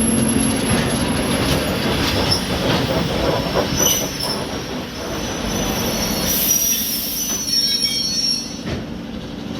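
A train running on the rails, with a steady rumble and high, thin wheel squeals that come and go, strongest around the middle of the clip.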